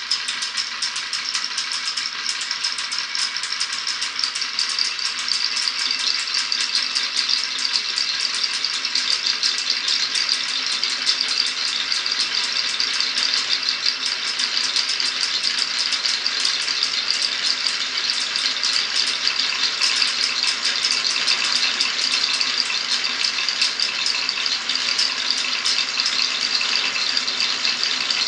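Many marbles rolling and clattering down a wooden marble-run course: a dense, continuous rattle of small clicks with no pause.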